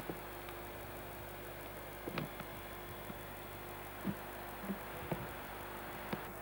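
Steady hiss of an analog Betamax video tape recording with a faint steady hum, broken by about six short soft clicks and knocks.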